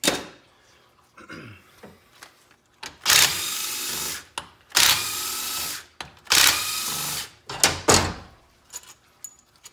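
Yellow DeWalt cordless drill-driver spinning out the valve body bolts on a 4L60E transmission, in three runs of a little over a second each. A sharp knock comes at the very start, and a few clicks come near the end.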